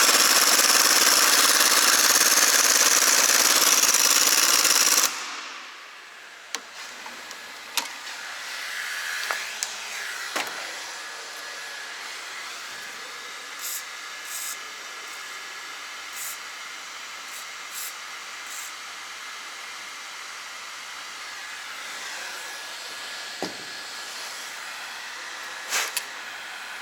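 A loud steady hiss for about five seconds that cuts off suddenly, followed by a quiet stretch with a few light clicks and knocks of tools being handled.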